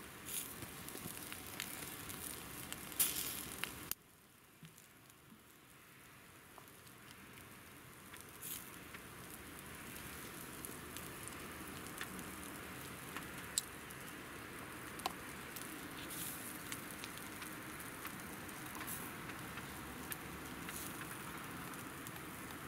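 Glowing embers crackling under a whole chicken roasting on a spit, a soft sizzling hiss with scattered sharp pops.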